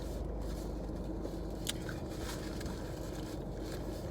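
Steady low rumble of a car cabin, with a few faint clicks.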